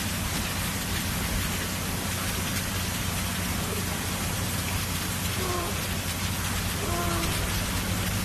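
A steady hiss with a low hum underneath. About five and a half and seven seconds in, a seal pup gives two short, high cries.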